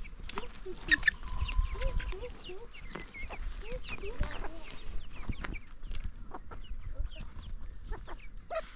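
A flock of domestic chickens clucking as they forage, with many short calls overlapping throughout and a brighter, higher call about a second in.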